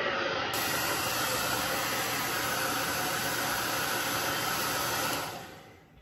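Adagio hand-held hair dryer blowing steadily, a dense rushing whoosh of fan and air. About five seconds in it dies away over roughly a second as it is switched off.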